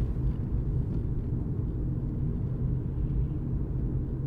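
Steady low rumble of a car driving through town traffic, heard from inside the cabin: engine and road noise.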